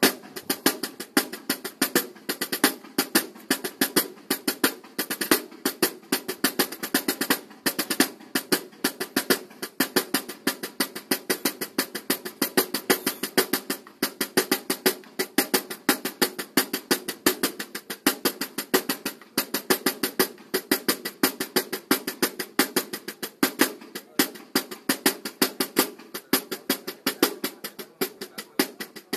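Banda de guerra drum line of snare drums and larger marching drums playing a fast, unbroken cadence of rapid strikes and rolls.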